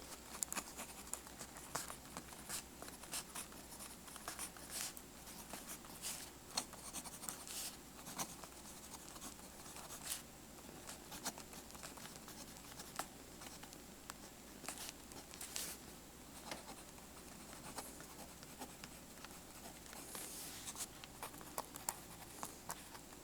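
Pentel Vicuna's 0.5 mm mechanical pencil lead writing on paper: faint, irregular scratching strokes.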